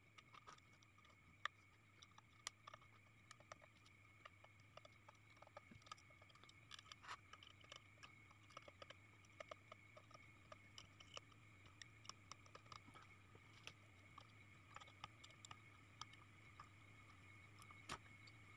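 Near silence: faint, irregular small clicks and ticks from soldering work on a circuit board, over a low steady hum.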